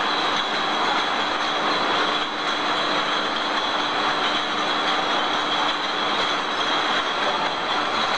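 Glass infusion bottles jostling and clinking against one another as they ride a stainless-steel slat conveyor, a steady dense rattle with the conveyor running under it and a faint high steady tone.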